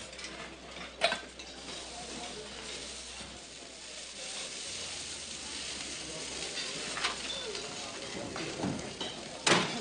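Steady sizzling of food frying in a kitchen, broken by a few sharp knocks or clinks: one about a second in, a lighter one later, and a louder one near the end.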